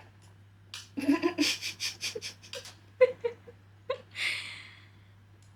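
A woman giggling in short bursts, ending with a breathy exhale about four seconds in.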